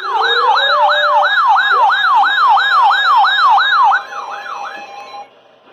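Electronic siren on a fast yelp, its pitch sweeping up and down about three times a second. It cuts off about four seconds in and trails away over the next second.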